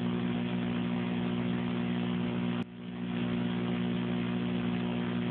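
Air-band radio channel with no voice on it: a steady low hum over hiss. A short click about two and a half seconds in briefly drops the noise before it builds back up.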